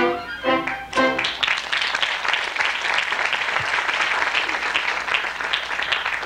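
The last sung and orchestral chord of a number, then audience applause from about a second in, steady until near the end.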